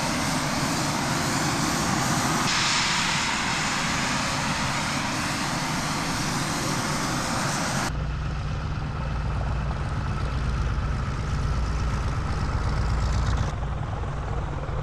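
Eurofighter Typhoon jet engines running as it taxis, a steady loud jet roar with a strong high hiss. About eight seconds in it cuts abruptly to the deep, low rumble of the Douglas DC-6's piston radial engines turning its propellers.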